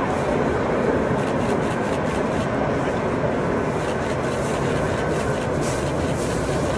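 Steady jet noise from the six turbofan engines of an Antonov An-225 Mriya climbing out after takeoff.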